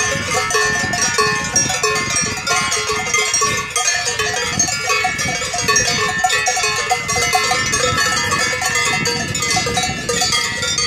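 Cowbells on a herd of cattle, many bells at different pitches clanging continuously and unevenly as the cows walk.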